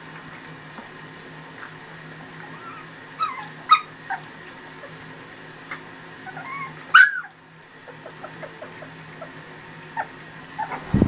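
Young Shar Pei puppies whimpering and yipping in a few short, high cries, the loudest about seven seconds in, over a steady low hum.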